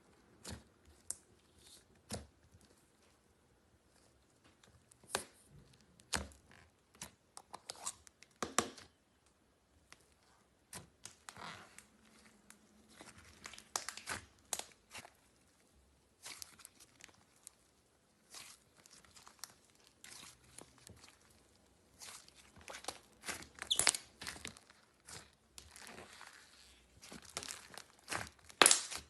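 Slime being handled by hand, giving irregular crackles, pops and crinkly tearing sounds, with a few louder snaps near the end.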